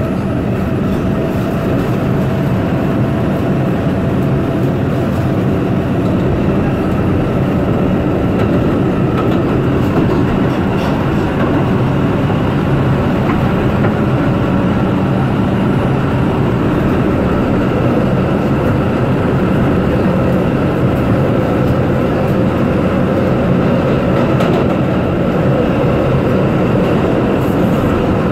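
New York City Subway 4 train running at speed through the tunnel, heard from inside the car: a loud, steady rumble of wheels on rail with faint whining tones.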